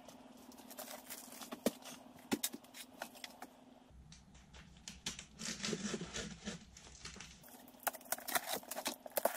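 A cardboard box being opened by hand: tape tearing, and cardboard and packing scraping and crinkling, with many small sharp clicks and taps.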